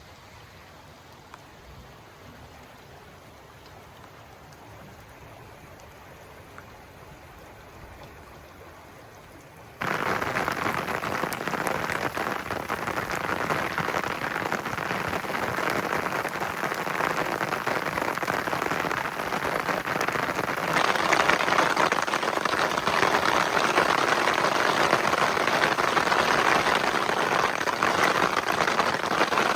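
Rain falling steadily. It is fairly faint for the first ten seconds, then jumps suddenly to a much louder, dense downpour, and grows louder again about twenty seconds in.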